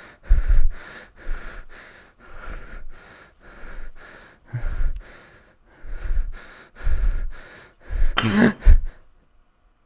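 A person breathing hard and fast in panic, short noisy breaths about every half second to second, ending in a louder cry-like gasp about eight seconds in, then breaking off.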